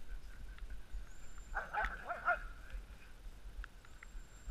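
Sled dog (husky) giving a short run of whines and yelps about two seconds in, over a low steady rumble.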